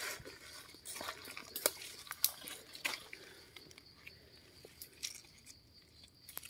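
Close-up crackling and rustling of leaf litter, plants and gritty soil as a hand reaches in and picks a wild mushroom from the forest floor, a handful of sharp clicks and crunches in the first three seconds, then quieter handling.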